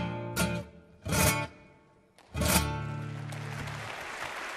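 Classical guitar ending a song with three strummed chords, the last one left to ring out. Applause starts near the end.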